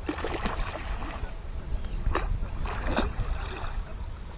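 Small waves lapping and slapping against the rocky edge, a few splashes near the start, about two seconds in and about three seconds in, over a steady low rumble of wind on the microphone.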